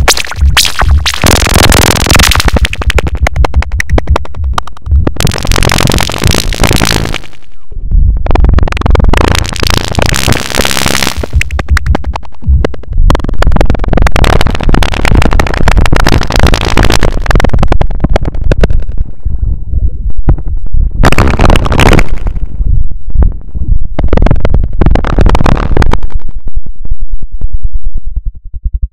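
Virtual modular synthesizer patch with a wavefolding oscillator, lowpass gate and noise module, cross-patched into a chaotic feedback tangle. It plays loud, harsh electronic noise over a steady deep bass, in stuttering, clicking bursts that cut out suddenly every few seconds. One of the quieter stretches ends in a falling sweep.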